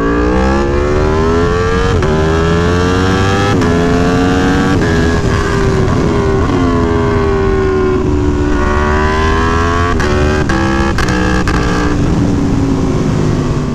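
Aprilia Tuono V4 1100 Factory's V4 engine accelerating hard through the gears. Its pitch climbs and drops sharply three times in the first five seconds as the quickshifter makes clutchless upshifts. It then runs on with slowly falling pitch, broken around ten seconds in by a cluster of sharp cracks and quick jumps in pitch.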